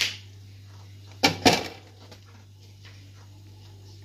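Two quick clatters of household objects being handled, about a second and a half in, over a steady low hum.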